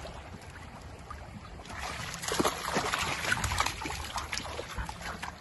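Dogs splashing as they wade through shallow water, over a steady wash of water. The splashing grows louder and busier about two seconds in.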